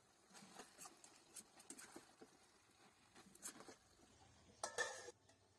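Faint taps and scrapes of a spatula stirring chicken and moringa drumstick pieces in a kadai, with a louder scrape near the end.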